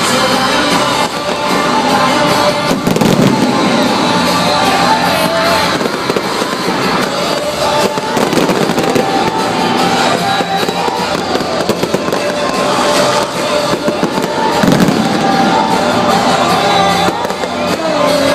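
Fireworks bursting and crackling without pause over loud music, with crowd noise beneath.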